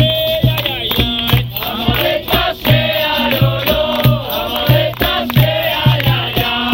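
Capoeira roda music: a group singing in chorus over a steady beat of a low drum with sharp percussion strokes, played on instruments such as the berimbau, pandeiro and atabaque.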